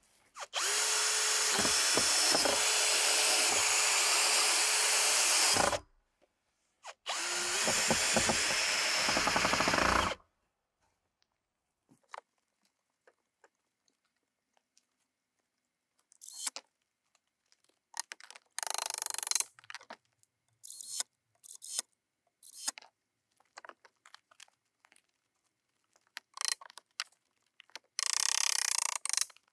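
Bosch cordless drill running, driving screws through a steel corner bracket into pine boards: two runs, about five and three seconds long, a second apart. Then scattered light knocks and clicks of boards being handled, with another short burst near the end.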